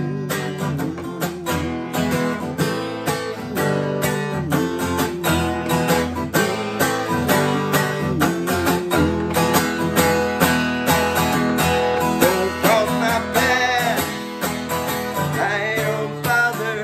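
Guitar-led instrumental break of the song, with steady plucked chords and a moving melodic line over them.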